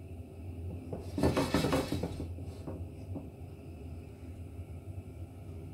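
A lidded stainless steel pan of popcorn kernels heating in oil on a gas hob, before any kernel has popped: a low steady hum with a brief rattling clatter about a second in and a few faint ticks after it.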